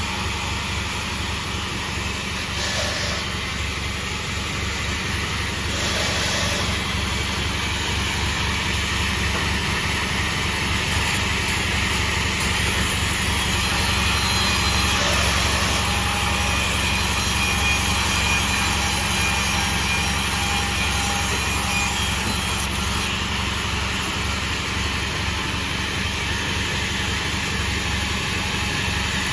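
Sawmill machine running steadily, a continuous mechanical drone with no breaks.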